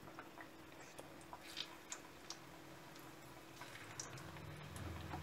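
Flattened green banana pieces (tostones) frying in a pan of hot oil on their second fry: faint, scattered crackles and pops. A low hum comes in near the end.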